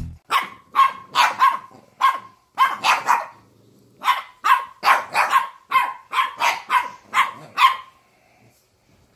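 Two Boston terriers barking back and forth at each other in a rapid string of about twenty short, sharp barks, with a brief pause about three seconds in. The barking stops shortly before the end.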